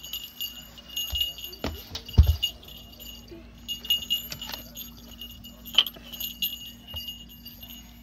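Jingling bells ringing in several short bursts, with knocks and rustles of handling; the loudest knock comes about two seconds in.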